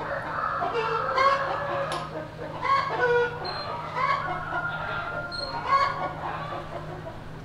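Chickens clucking, short pitched calls repeating about once a second.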